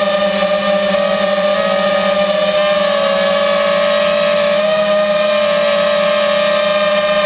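Homebuilt drone's electric motors and propellers whining steadily in flight, heard close up from the camera mounted on the drone itself. The pitch wavers a little now and then.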